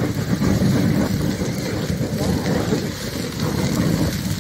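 Large fire burning fiercely through a tractor: a steady, dense crackling rumble of flames.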